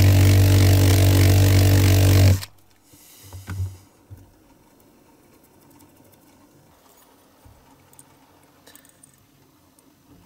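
Cordless drill running at a steady speed, then switched off and stopping abruptly about two and a half seconds in. A few soft handling knocks and small clicks follow.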